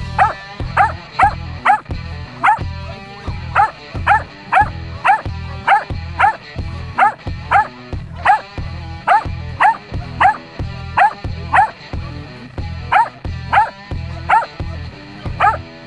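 Portuguese Podengo Pequeno barking in high, sharp yips, about two a second without a break, while held back at the start line of a lure-coursing run, eager to chase the lure.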